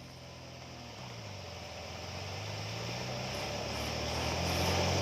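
Suzuki Jimny's carburetted Vitara engine pulling under load as the vehicle drives forward, growing steadily louder, with a hiss over it; the sound drops sharply right at the end.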